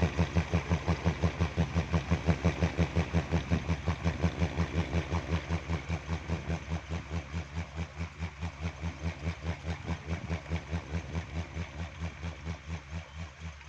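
Kiling, a bamboo-and-wood windmill noisemaker on a tall pole, turning in the wind and giving a rhythmic low humming throb, about five beats a second. It slowly grows quieter toward the end.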